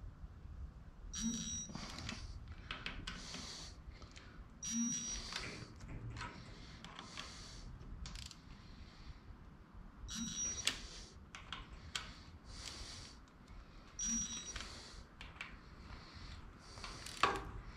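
Torque wrench tightening bolts one after another. About every four seconds there is a short metallic ring with a dull knock, followed by a run of sharp ratchet clicks.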